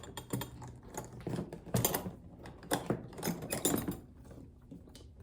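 Leather briefcase being handled, its metal hardware giving a run of irregular clicks and clacks that die away about four seconds in.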